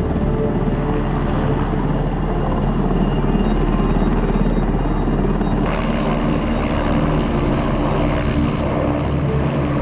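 Mountain rescue helicopter flying close by, its rotor chopping and turbine running steadily; the sound gets brighter and hissier a little past halfway.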